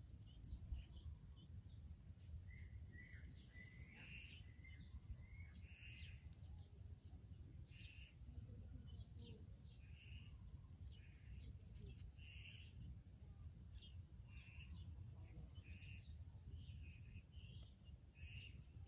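Faint birds chirping in the background, short high calls coming every second or so, over a low rumble.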